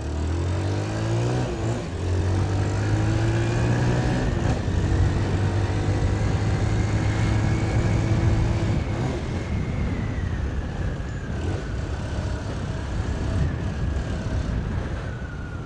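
Motorcycle engine running with its exhaust removed, ridden along the road: it revs up in the first second, then holds a steady note.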